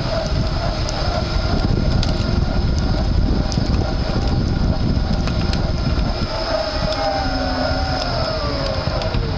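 Front hub motor of a Panasonic ViVi Charge electric-assist bicycle whining while riding, over steady wind and road noise. Over the last few seconds the whine falls in pitch as the motor slows.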